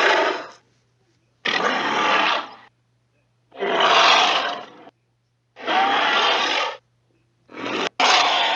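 Carcharodontosaurus roar sound effects: a run of harsh dinosaur roars, each about a second long, with short gaps between them. The last roar is split by a brief cut.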